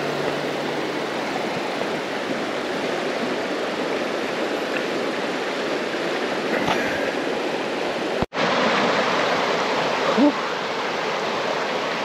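Rushing water of a river or falls, a steady, even rush. It drops out for an instant about eight seconds in and then goes on.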